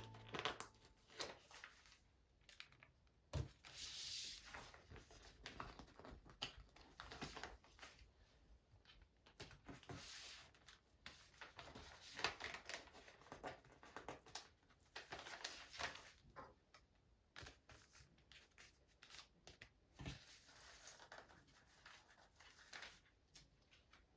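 Faint, scattered rustles and light clicks of paper being handled, with the quiet of a small room between them.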